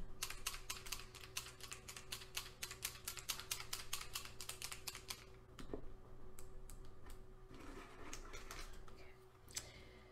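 Paint marker being shaken, its mixing ball rattling in quick clicks about six times a second for some five seconds, then a few scattered clicks and rustling.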